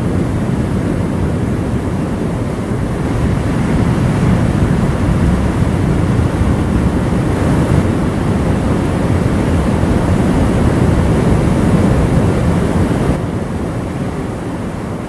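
Heavy surf breaking on a rocky shore: a loud, steady wash of waves without pause, easing off a little near the end.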